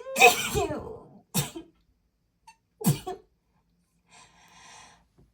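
A woman's breathy, voiced gasps as a sneeze builds: one long, loud catch of breath, then two short sharp ones, then a faint breathy intake near the end. The sneeze never comes; it was lost while she tried to hold it back.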